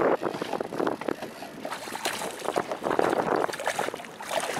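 Wind buffeting the microphone over choppy water, with small waves lapping against the side of a small boat in uneven surges.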